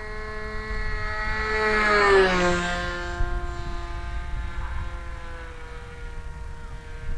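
PT-40 RC trainer plane's engine making a low flyby: a high-pitched whine, loudest about two seconds in as it passes overhead, where the pitch drops sharply (the Doppler shift). It then carries on steadily at the lower pitch as the plane flies away.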